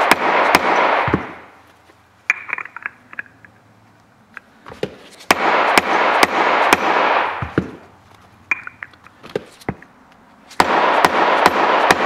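Hammer striking a socket to drive a new needle bearing into the fixed half of a scooter's rear driven pulley: three runs of rapid metallic blows, at the start, in the middle and near the end, with a few lighter taps between them.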